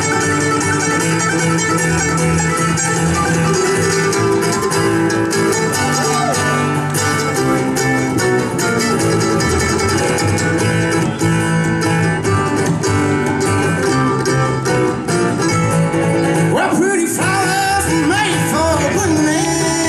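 Live bluegrass playing: flatpicked acoustic guitar with mandolin and upright bass driving a fast tune. About three-quarters of the way through, a male voice starts singing over the instruments.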